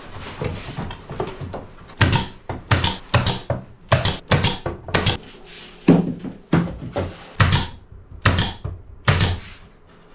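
A tongue-and-groove softwood ceiling board is being knocked and fastened onto a boat's frames: a run of sharp wooden knocks, about two or three a second, starting about two seconds in.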